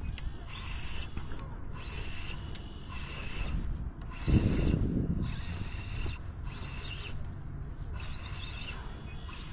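Spinning reel being cranked to retrieve line, its gears whirring in even pulses about once a second. A brief low rumble about four seconds in.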